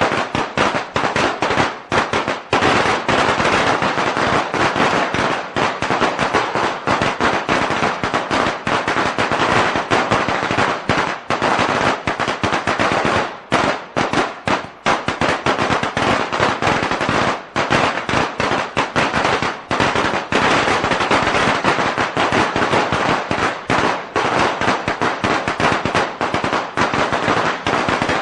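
A long string of Chinese firecrackers (bianpao) going off in a rapid, unbroken stream of sharp cracks, too fast to count, with only brief lulls.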